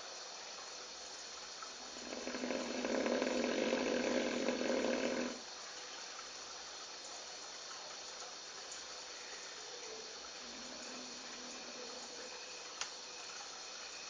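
A sleeping lion snoring: one long, loud snore starts about two seconds in and lasts about three and a half seconds. It is followed by a quieter stretch with a brief click near the end.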